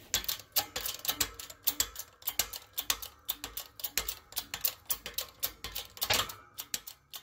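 12-ton hydraulic shop press being worked to push a pinion shaft out of its worn bearing: rapid, uneven metallic clicking, several clicks a second, with one louder knock about six seconds in.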